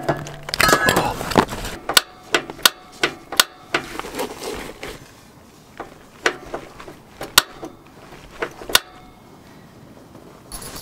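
Mr. Heater Buddy propane heater's piezo igniter snapping as its knob is pressed again and again, about ten sharp clicks, several a second at first and then spaced out: a new heater that is slow to light. Propane canisters clatter as they are handled near the start.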